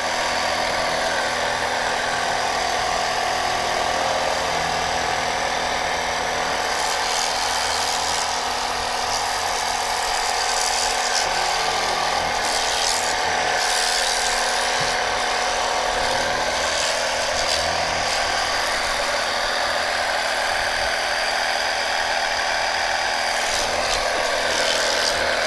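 Portable pressure-washer gun running steadily: its small electric pump whines while the water jet hisses and spatters on a motorcycle, with the hiss getting brighter for a while about a third of the way in and again near the end. The jet is weak, which the owner takes as proof that it is not a real high-pressure washer.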